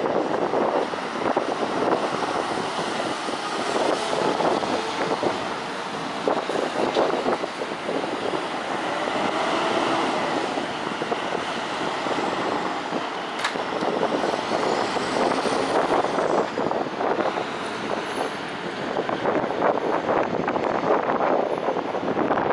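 Lorries driving off a car ferry onto the quay, their diesel engines and tyres running in a steady traffic noise.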